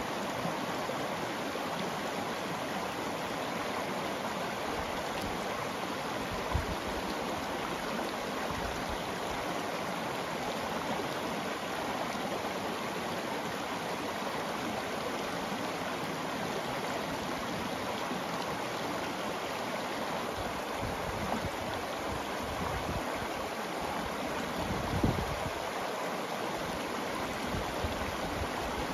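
Shallow river steadily rushing and burbling over a stony bed and small riffles. A brief low thump comes about six seconds in, and a louder one near the end.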